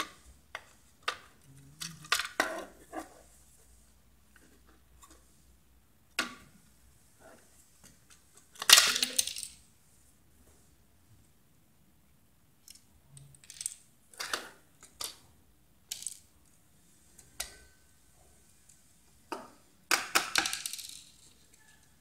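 Hard plastic parts of an Infinuvo CleanMate robot vacuum's dustbin clicking, knocking and clattering as it is taken apart by hand. Scattered sharp clicks, with a longer rattling scrape about nine seconds in, the loudest, and another near the end.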